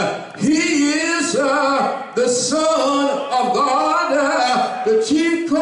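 A man's voice through a handheld microphone, chanting the sermon in held, sung phrases instead of plain speech.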